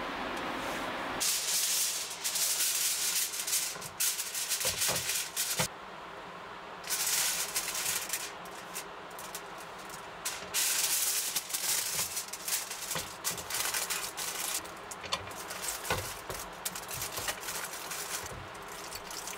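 Aluminium foil crinkling and rustling in repeated bursts as it is folded around a sandwich, with a few light knocks.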